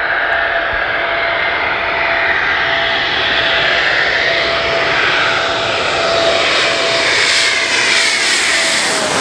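Jet aircraft engines running loud and steady, with a constant whine underneath. In the last few seconds the higher tones sweep and shift.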